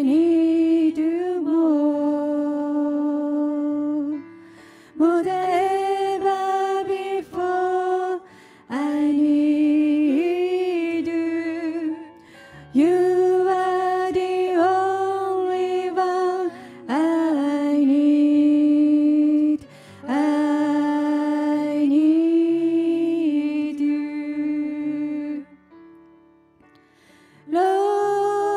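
A group of women singing a slow worship song together in long, held phrases, over soft sustained keyboard notes, with a short break in the singing near the end.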